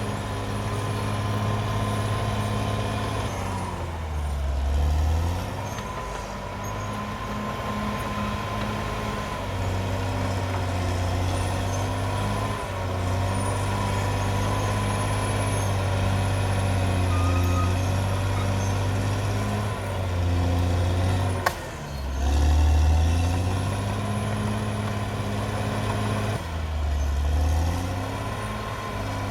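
Caterpillar D6R XL bulldozer's diesel engine running steadily. Its pitch sags briefly about four times as the engine takes load. There is one sharp click near the end.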